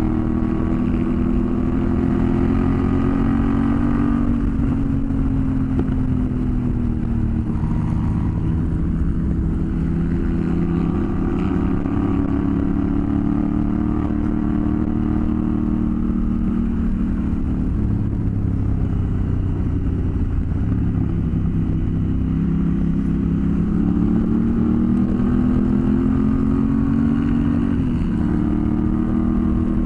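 Motorcycle engine running at riding speed, its pitch slowly falling and rising with the throttle over several seconds, over a steady low rumble.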